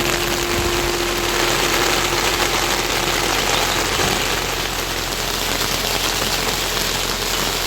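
Steady heavy rainfall, an even hiss with no let-up. A single steady humming tone sounds over it and stops about three seconds in.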